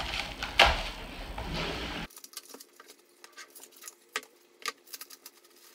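Plastic wrapping crinkling as it is cut with scissors and pulled off a picture frame, loudest about half a second in. After about two seconds it drops to faint scattered crinkles and clicks.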